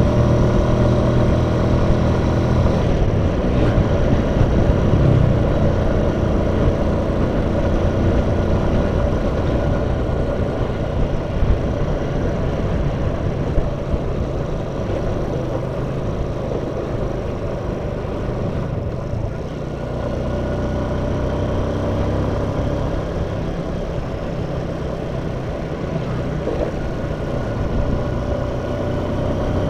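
Freshly overhauled Yamaha Jupiter MX 135 single-cylinder four-stroke motorcycle engine running steadily while the bike is ridden, with road and wind noise underneath.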